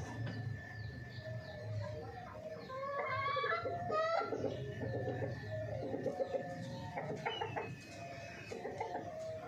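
Chickens clucking, a rooster among the hens: many short calls in quick runs, busiest about three to four seconds in and again in the last few seconds.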